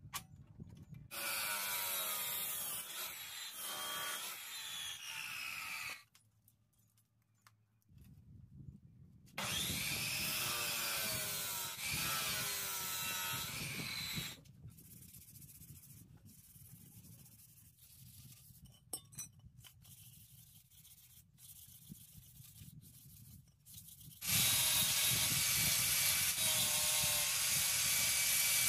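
Abrasive chop saw cutting steel bar, twice: each cut runs for about five seconds, a loud grinding whine. Between cuts there are scattered clanks of metal being handled, and from near the end an angle grinder runs against steel.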